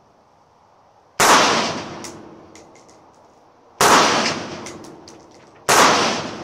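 Three shots from a Zastava M85 PAP AK pistol in 5.56/.223: the first about a second in, the next two about two and a half and two seconds apart. Each shot rings out and fades over about a second, with a few light clicks after it.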